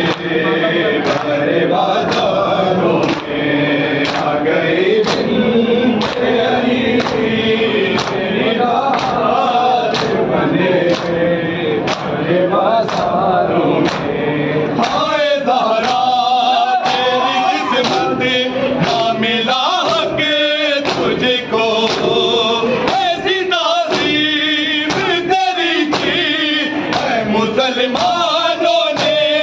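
Men chanting a noha, a Shia mourning lament, in chorus, with chests struck in matam in a steady beat about once a second. About halfway through, the singing becomes clearer, led by a few strong voices, while the beating goes on.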